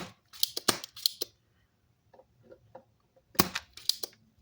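Sharp snaps and clicks of a spring-loaded desoldering pump being cocked and fired to suck solder from a MOSFET's pin holes on an amplifier board. One loud snap at the start, a group of clicks about half a second to a second in, and another group about three and a half seconds in.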